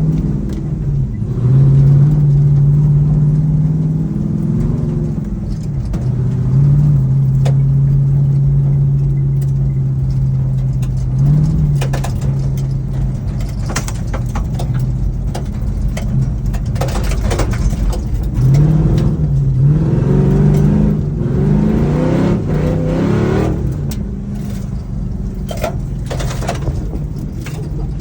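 Truck engine running hard on a dirt track, its note holding and stepping in pitch at first, then revving up and down repeatedly in the second half, with scattered sharp clicks and knocks.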